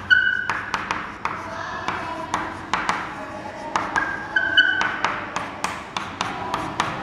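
Chalk writing on a blackboard: a quick run of sharp taps and scratches as letters are stroked on. There are brief high chalk squeaks near the start and again about four and a half seconds in.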